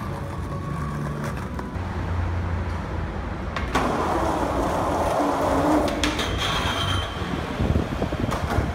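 Skateboard wheels rolling over rough concrete, with sharp clacks of the board popping and landing. Near the end the board grinds along the metal edge of a concrete bench.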